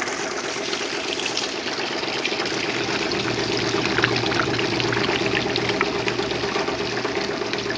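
RP-4 gold shaker table running: water washing steadily across the shaking deck and pouring off into the collection buckets, over the steady hum of the table's motor.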